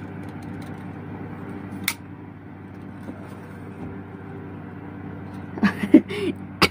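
Steady hum of an electric ceiling fan, with sharp clicks about two seconds in and again just before the end as a phone tripod mount is handled. A few short vocal sounds come near the end.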